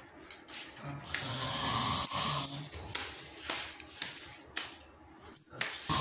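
A man snoring heavily through his open mouth in deep sleep: rough, noisy breaths, the longest and loudest about a second in and lasting over a second.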